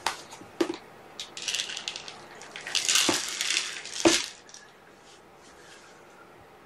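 Dry cat kibble rattling as it is poured into a food bowl and handled: a few clicks, then rattling in bursts, loudest about three seconds in, ending with a knock about four seconds in.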